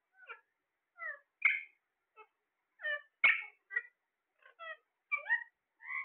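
Alexandrine parakeets calling: a string of short, separate squawks and chirps, about ten in six seconds, some sharp and loud, with meow-like notes among them.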